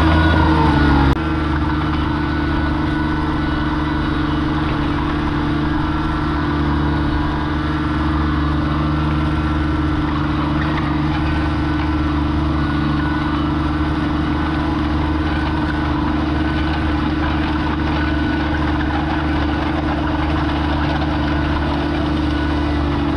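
John Deere 755 compact utility tractor's three-cylinder diesel running steadily under load while a rear box blade drags through loose gravel, with a gritty scraping of stone beneath the engine note. The engine note steps down slightly about a second in, then holds steady.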